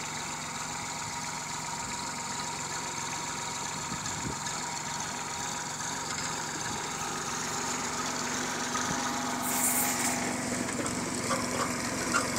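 Kubota compact tractor's diesel engine running steadily while it pulls a potato planter through the field. A brief rush of noise about ten seconds in.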